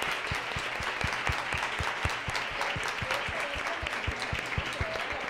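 An audience applauding steadily, with loud close claps coming about four times a second through the clapping.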